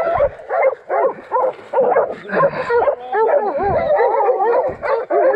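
Several hog-hunting dogs baying: rapid, overlapping barks and yelps that run together into continuous wavering howls about three seconds in.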